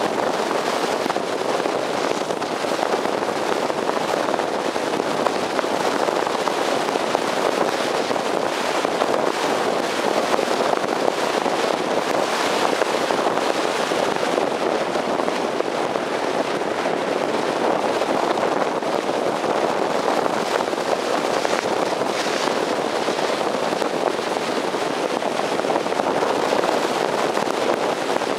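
Wind rushing over a roof-mounted camcorder's microphone as the car drives at road speed: a steady, rough rushing noise with scattered small crackles, mixed with road noise.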